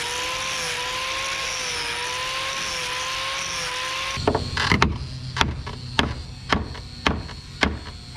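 Handheld electric sander running on a wooden rail, a steady hiss with a motor whine that wavers in pitch as it is pressed. About four seconds in it gives way to about eight sharp hammer blows, roughly two a second, on the carved wooden scroll being fitted to the rail.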